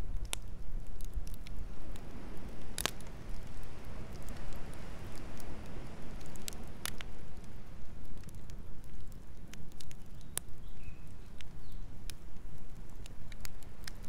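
Wood campfire crackling, with irregular sharp pops from the burning logs, the loudest about three, seven and ten seconds in, over a steady low rumble.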